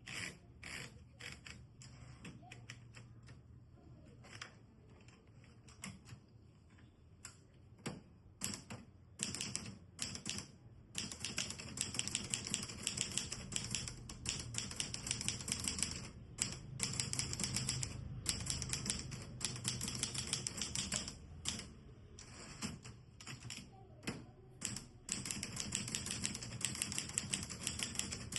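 Olivetti Lettera 33 manual typewriter being typed on: separate, spaced-out keystrokes for the first ten seconds or so, then fast continuous typing with a few short pauses.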